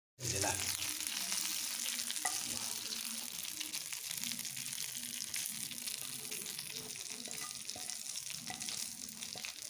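Hot oil sizzling and crackling steadily from pan-fried fish.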